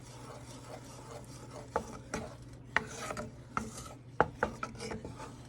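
A utensil stirring buffalo sauce of melted butter and hot sauce in a pot: a continuous scraping against the pot, with irregular sharp clicks where the utensil knocks the pot's side.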